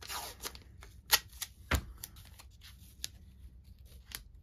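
Hands handling a small piece of blue painter's tape on cardboard: a short papery rustle, then two sharp clicks about a second and nearly two seconds in, and light ticks as the tape is pressed down over the end of the strip.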